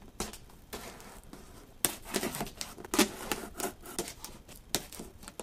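Folding knife cutting the packing tape along the top of a cardboard box, a run of irregular scrapes and clicks with a few sharper ones about two and three seconds in.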